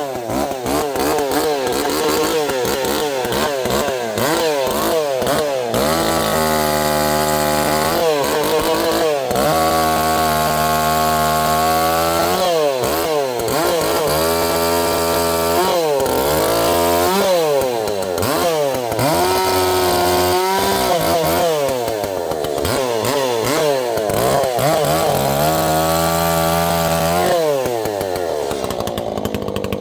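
Echo two-stroke chainsaw being throttled up and down over and over. The engine rises to high speed and holds there for a few seconds at a time, several times, then drops back toward idle between pulls of the trigger.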